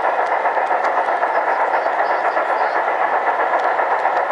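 G-scale model trains running on the layout's brass track: a steady running noise with a fast, even flutter in loudness.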